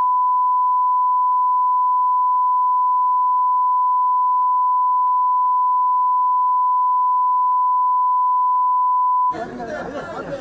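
Broadcast bars-and-tone test signal: one steady, unbroken beep played with colour bars, marking a break in the stream feed. It cuts off suddenly about nine seconds in, and crowd chatter takes over.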